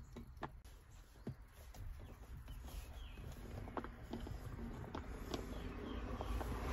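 Faint, scattered clicks and taps of an Allen wrench pushed and wiggled in the release hole on the side of a steering wheel, working the driver's airbag loose. A few short chirps sound about three seconds in.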